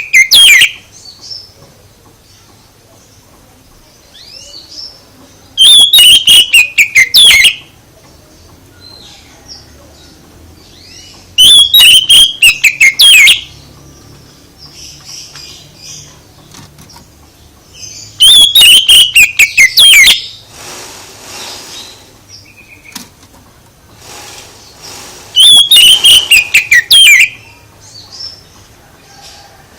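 Loud songbird call played as a lure for an oriental magpie-robin (kacer): a burst of rapid whistled notes falling from high to lower pitch, repeated in near-identical form about every six and a half seconds. Faint chirps and a short hiss fill the gaps.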